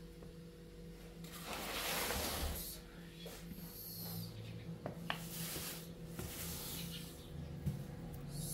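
A hissing rush that swells and fades over about a second and a half, followed by a few light clicks and knocks over a faint steady hum.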